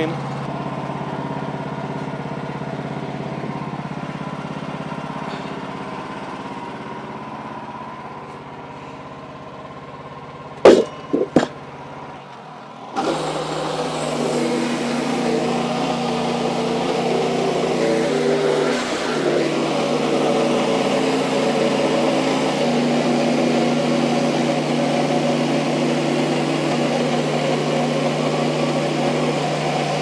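Wood-Mizer LX55 portable bandsaw mill's engine running steadily, with three sharp knocks about eleven seconds in. At about thirteen seconds the band blade starts cutting through the poplar log, and the sound turns suddenly louder and noisier with the engine under load.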